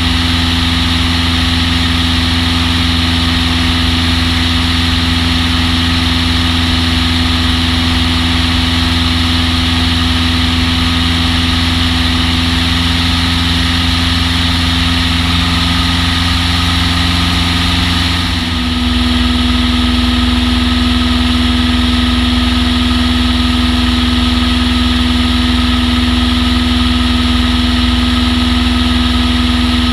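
Long-EZ's pusher engine and propeller running steadily, heard from the camera mounted on the aircraft. After a brief dip about two-thirds of the way in, the engine note changes and settles at a slightly louder, different tone, as with a throttle change.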